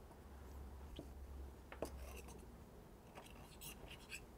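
Faint scrapes and light ticks of a kitchen knife blade trimming pastry dough against the rim of a small ceramic ramekin, with a cluster of scraping strokes near the end. A steady low hum lies underneath.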